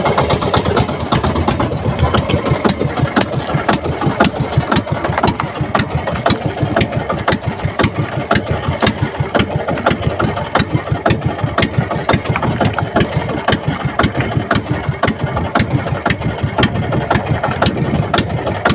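Small engine of a motorized fishing boat running steadily, a rapid, even putter of firing pulses.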